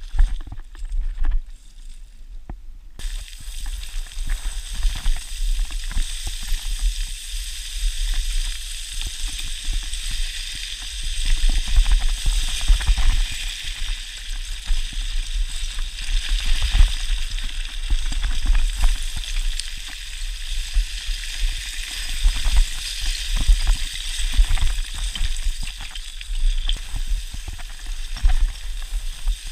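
Hiking boots plunging and sliding down a slope of loose scree. The stones crunch and rattle in a continuous hiss, broken by quick, irregular footfalls. The hiss grows louder about three seconds in.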